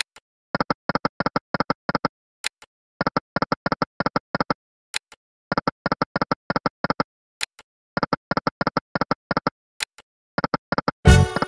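Video slot game sound effects: repeated runs of about six short electronic beeps, roughly five a second, as the reels spin and stop. A single sharp click comes between runs, about every two and a half seconds. A short, loud burst of game music starts near the end.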